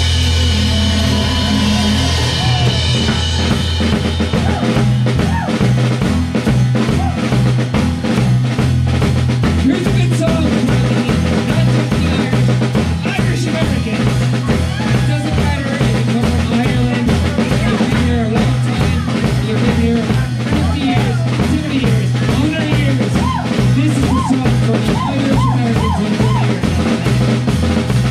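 Live band playing, heard close to the drum kit: a cymbal rings out over held low notes, then about four seconds in the drums come in with a steady beat of kick, snare and rimshots under the band.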